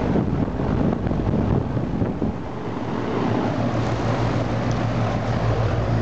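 1993 Janitrol 4-ton central air-conditioner condenser running: the fan's air rushing over the microphone, with a steady low hum underneath that comes through more plainly in the second half.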